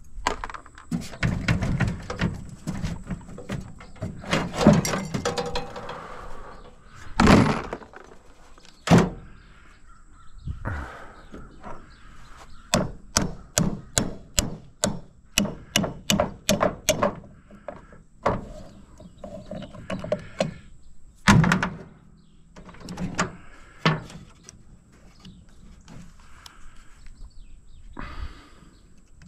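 Metal parts of an air conditioning unit clanking and knocking as it is pulled apart for scrap, with a rhythmic run of sharp taps, about three a second, in the middle.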